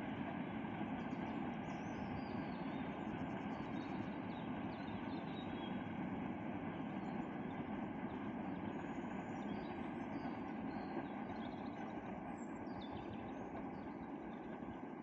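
Freight train rumbling steadily on the rails, slowly fading, with birds chirping faintly.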